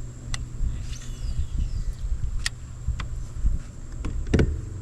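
Small electric boat motor, likely a trolling motor, humming steadily under wind buffeting the microphone, with a few light clicks and a louder knock near the end.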